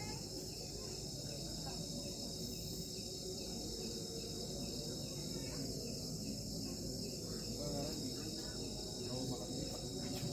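Crickets chirring in a steady, continuous high chorus, with faint low murmuring underneath.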